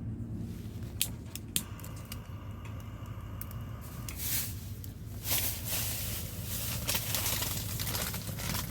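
A couple of sharp clicks, then a crackling hiss that starts about four seconds in and keeps going: a fire starter catching and beginning to burn in the wood stove of a hot tent.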